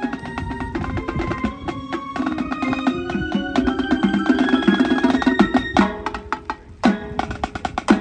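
High school marching band playing its field show, heavy on percussion: fast struck notes over held pitched tones, then a few hard accented hits near the end.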